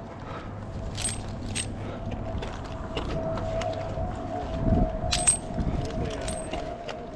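Metal climbing hardware clinking a few times, sharp ringing clicks, over a steady faint high hum.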